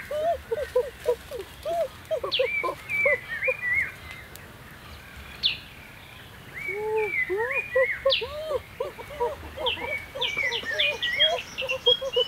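Many short, quick calls from small animals or birds: arching chirps at a lower and a higher pitch, thinning out for a couple of seconds in the middle and then coming thick and fast again, with a run of quick falling chirps near the end.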